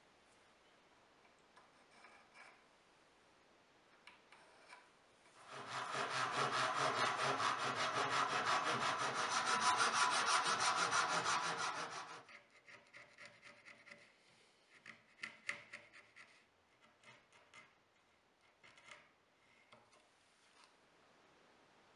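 Japanese ryoba handsaw cutting a cross-lap notch into a wooden tenon: quick, even strokes for about six seconds, starting about five seconds in. Scattered light clicks and knocks follow as the work is handled.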